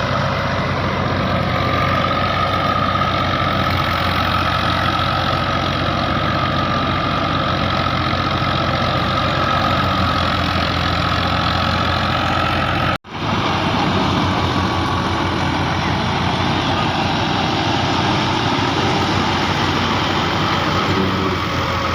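Engine of harvest machinery running steadily, with a high steady whine over it; the sound cuts out for a moment about halfway through, then carries on.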